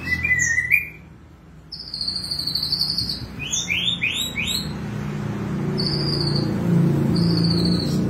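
Caged white-rumped shama (murai batu) singing in loud, separate whistled phrases, with a run of three quick rising whistles about halfway through. The title gives its song as loaded with mimicked cililin phrases. A low rumble builds in the background over the second half.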